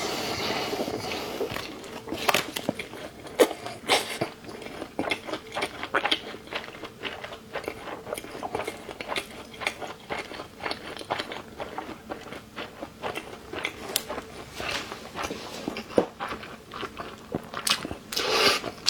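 Close-up eating of a rolled cold-skin noodle (liangpi) wrap with crunchy dried radish: an irregular run of crisp bites and crunches as it is chewed, with a few louder crunches, one about three and a half seconds in and one near sixteen seconds.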